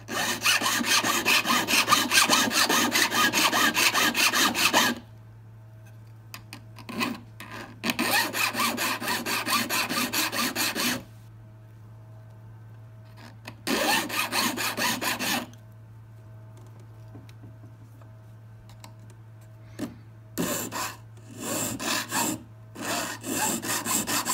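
Metal hand file rasping back and forth across a 9-carat yellow gold ring held against a wooden bench peg, cutting a groove around the soldered joint ready for laser welding. It comes in several spells of quick strokes with short pauses between them.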